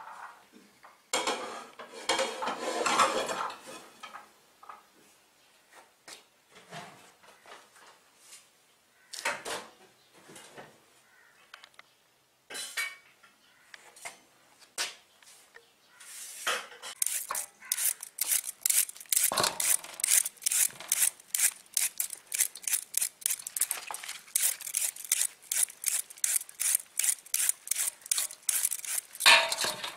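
Carrots being grated by hand on a small handheld grater: a quick, even scraping, about three strokes a second, starting about halfway through. Before that, scattered knocks and rattles of carrots and a knife on a metal tray.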